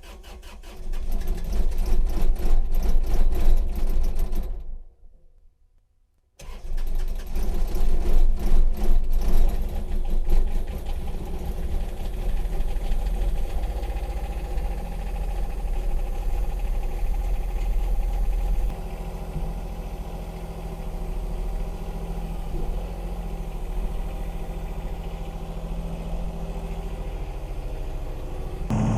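Cold start of a John Deere 2210 compact tractor's three-cylinder diesel engine. The starter cranks for about four seconds and stops, then cranks again until the engine catches. It settles into a steady idle, a little quieter from about two-thirds of the way through.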